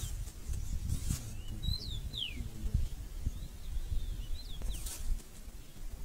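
Small birds chirping, a scatter of short, quick whistled notes gliding up and down, over a low rumble, with two brief rustles about a second in and near five seconds.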